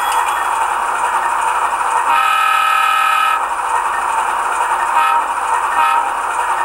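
Model diesel locomotive sound decoder playing through a small speaker: a steady diesel engine hum, one horn blast about two seconds in lasting just over a second, then two short horn toots.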